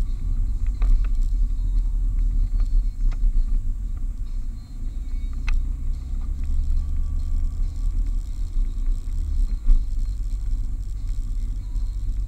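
Car driving, heard from inside the cabin: a steady low rumble of engine and road noise. A deeper engine note comes up about halfway through and drops away near the end, with a few light clicks of rattling in between.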